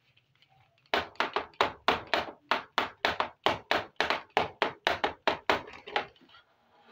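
Fingers tapping quickly and evenly on a hollow plastic miniature toy stove: about two dozen sharp taps, four or five a second, starting about a second in and stopping about a second before the end.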